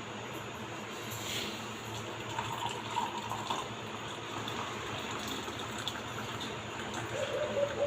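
Liquid running steadily, a continuous watery rush.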